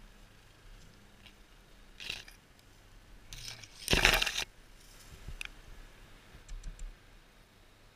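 Conifer branches and needles scraping and rustling against a head-mounted camera as a climber pushes through the foliage, in several short bursts, the loudest about four seconds in.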